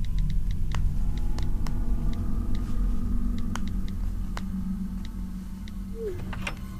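Low, steady rumbling drone with a string of short, irregular clicks over it: smartphone keyboard taps as a text message is typed. The tapping stops about five seconds in, and a brief falling tone is heard near the end.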